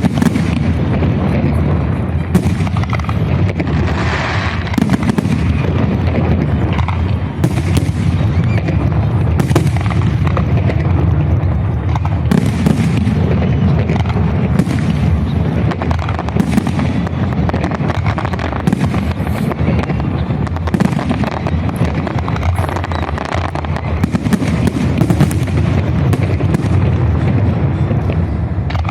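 Fireworks salute: a dense, continuous barrage of bangs and booms, many sharp cracks over a steady low rumble.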